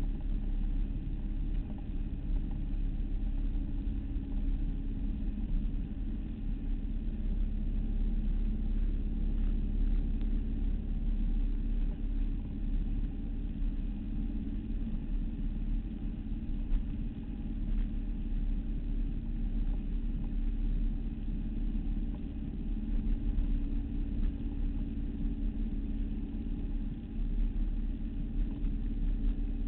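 Motorboat engine running steadily at cruising speed, with a rush of wind and water as the boat moves through the water.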